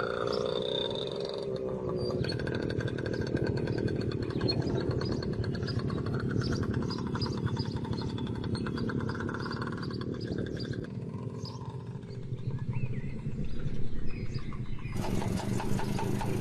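Restored Zündapp motorcycle engine running, its speed rising and falling. About fifteen seconds in, the sound changes abruptly to a steadier running.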